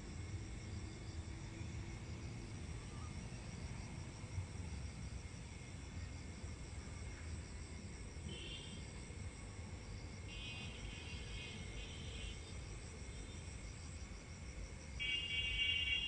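Crickets and other insects chirring steadily over a low outdoor rumble. Louder trilling calls break in about eight seconds in, again for a couple of seconds a little later, and loudest near the end.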